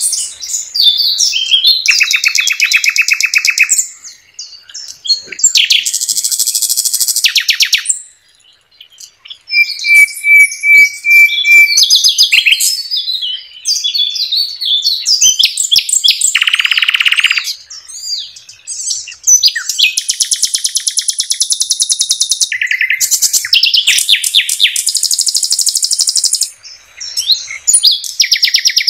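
Nightingale (sikatan londo) singing in loud phrases of fast, rapidly repeated notes, with a short run of clear, evenly spaced whistled notes about ten seconds in and brief pauses between phrases.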